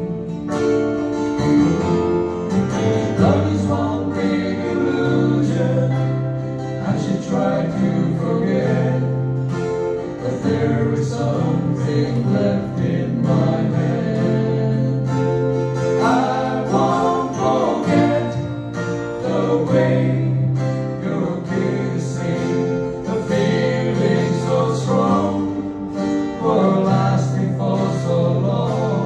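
Live small-band music: acoustic guitars and keyboard playing together over held low bass notes, with voices singing.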